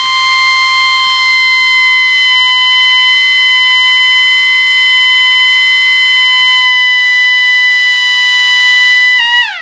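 Small 220 V AC motor siren wailing loudly at a steady pitch. Near the end the timer relay cuts its power, and the pitch slides down as the rotor spins down.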